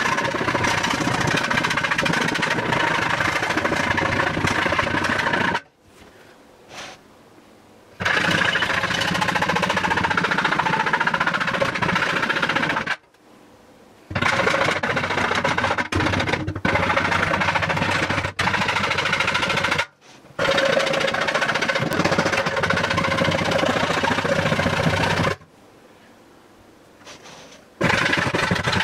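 A small handheld power tool running in five runs of about five seconds each, with short pauses between, as it works the edge of a hole in a plastic bucket lid.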